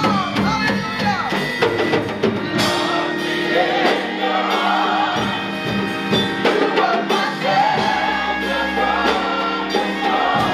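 Gospel choir singing with live band accompaniment: held chords under sung lines, with a drum kit keeping the beat.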